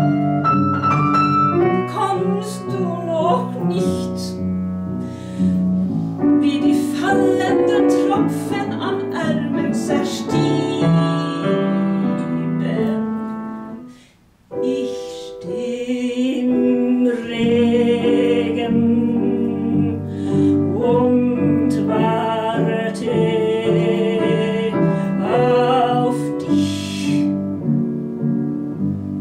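Grand piano accompanying a woman singing a slow 1930s German cabaret song in a classical, vibrato-rich style, with a brief break about fourteen seconds in before the piano and voice resume.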